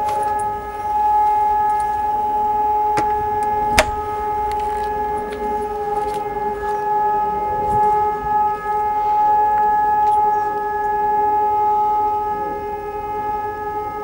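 A strange, intense horn-like drone of unknown source, holding one steady pitch with overtones and neither rising nor falling. A single sharp click sounds a little before four seconds in.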